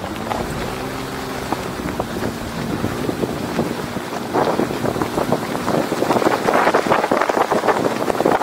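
4x4 truck driving on a dirt road, heard from outside the body: an engine note in the first few seconds, then tyres crunching over gravel and dirt with a dense crackle from about four seconds in. Wind buffets the microphone throughout.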